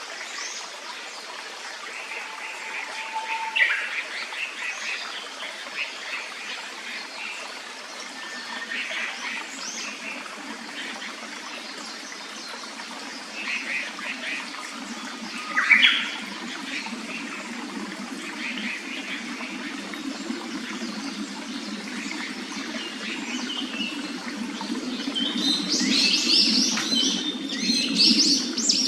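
Japanese paradise flycatchers and other forest birds giving short scattered chirps and calls, with a dense run of calls near the end. Under them a stream runs steadily, its rushing growing fuller about halfway through.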